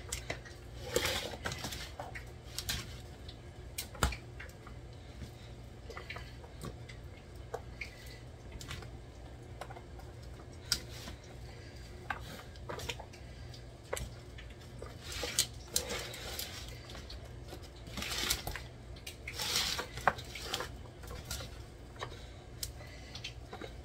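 Hands tossing cooked spaghetti in a disposable aluminium foil pan: irregular crinkles and taps from the foil and soft squishing of the noodles, busiest in a stretch about two-thirds of the way through, over a steady low hum.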